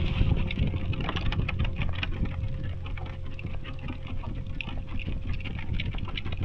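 Irregular crunching and pattering of footsteps on a forest trail, over a steady low rumble.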